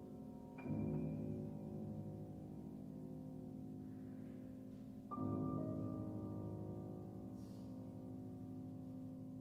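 Solo piano playing slowly: a chord struck about half a second in and left to ring, then a second chord struck about five seconds in, its notes sustained and slowly dying away.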